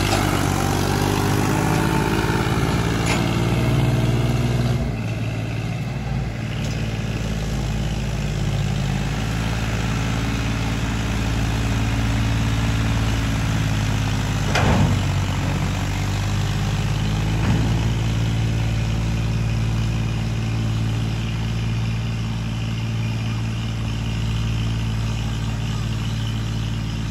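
Massey Ferguson 1035 tractor's diesel engine running steadily under load, pulling a loaded trolley across a field. A few sharp knocks sound over it, the clearest about halfway through.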